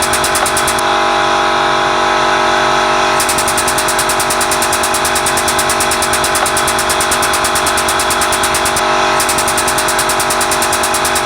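Workshop air compressor running steadily with a fast, even chugging pulse. A high hiss on top drops out for about two seconds a second in, and again briefly near nine seconds.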